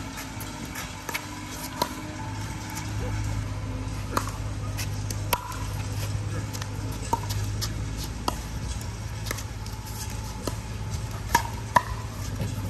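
Pickleball paddles striking a plastic ball in a rally: a series of sharp pops, unevenly spaced about a second apart, the two loudest close together near the end. A steady low hum runs underneath.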